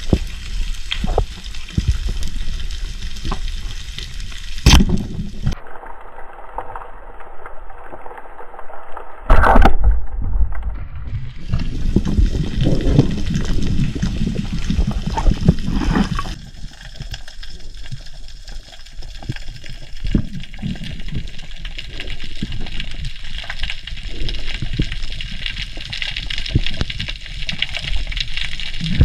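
Water sloshing and gurgling around a freediver's action camera, with two short loud surges about five and nine and a half seconds in.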